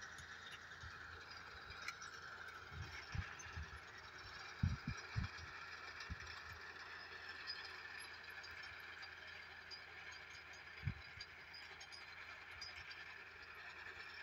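Tractor and lentil-reaping machine running steadily, heard as a faint, even drone. Several low thumps come a few seconds in, and one more past the middle.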